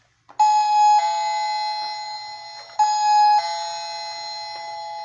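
A toy dollhouse's electronic doorbell chiming a two-tone ding-dong twice, each time a short high note falling to a longer, lower note that fades slowly.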